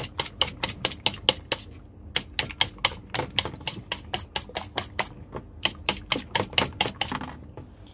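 Fork beating eggs in a stainless steel bowl: quick clicking taps of the fork against the metal, about five or six a second, with two short pauses, stopping shortly before the end.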